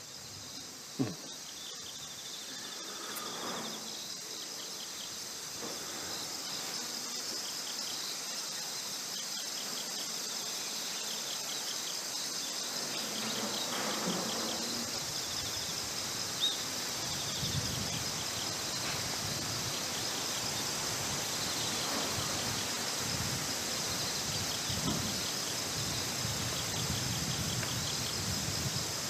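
Chorus of many insects singing outdoors: a steady high-pitched chirring with a fast pulsing pattern, growing slightly louder over the first few seconds. A soft knock sounds about a second in.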